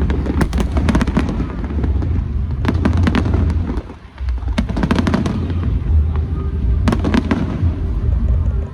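Aerial fireworks going off in quick succession: sharp bangs and crackling over a continuous low rumble of booms, with a brief lull about four seconds in.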